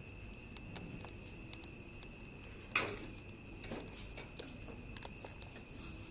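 Several soft clicks and taps as a finger presses the buttons of a dissolved oxygen meter's membrane keypad, one tap about a third of the way in louder than the rest. A faint steady high-pitched tone runs underneath.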